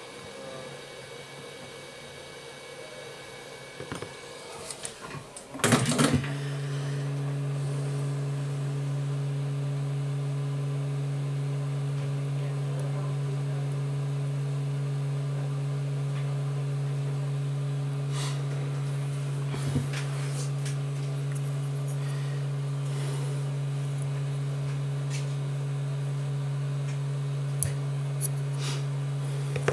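A hot-air rework station comes on with a sudden burst about six seconds in, then its blower runs with a steady low hum while a chip is being desoldered from the phone board. A few faint ticks come over it.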